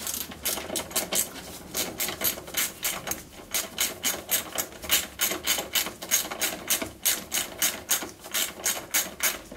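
Socket ratchet wrench clicking steadily, about three to four clicks a second, as a bolt is wound out.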